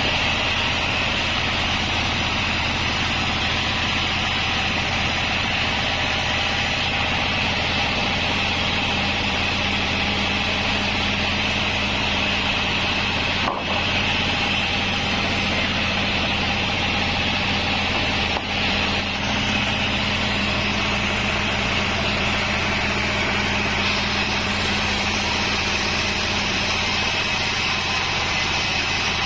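Sawmill band saw running steadily, its motor humming under the hiss of the moving blade.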